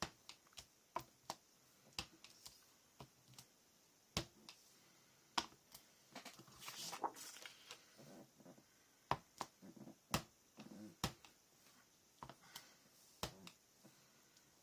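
Irregular light taps and clicks of a stamp being inked on an ink pad and pressed onto paper, with a brief rustle of paper about six to seven seconds in.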